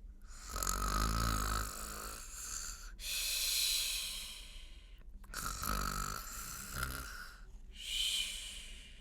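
A person imitating a bear's snoring: two long snores, each a rattly in-breath followed by a breathy out-breath.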